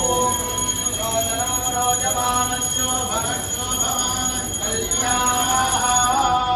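A hand bell is rung steadily through the ritual, its ringing cutting off just before the end, over voices chanting mantras.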